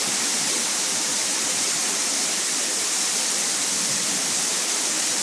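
Heavy rain pouring down, a steady dense hiss with no breaks.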